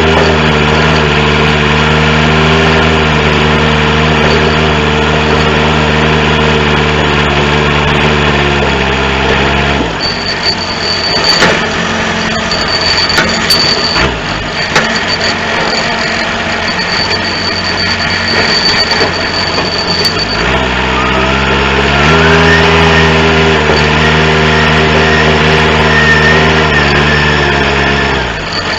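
Four-cylinder diesel engine of a John Deere 210C backhoe loader running steadily. About nine seconds in its note drops, and for about ten seconds there is rougher, noisier working sound with clanks and an on-and-off thin high whine. Then the engine picks back up to a steady run, with a brief dip near the end.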